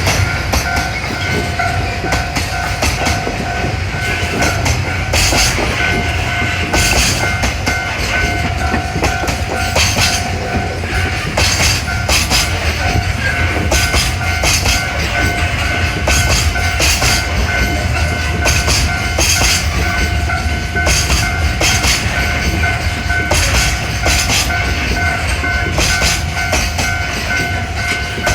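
Mizushima Rinkai Railway DE70 diesel locomotive passing over a level crossing with a low steady engine rumble and repeated wheel clacks over the rail joints. Over it, the level crossing's warning bell rings steadily.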